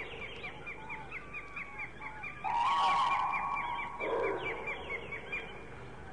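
Bird calls: a rapid series of short high chirps, about five a second, with a longer honk-like call starting about two and a half seconds in.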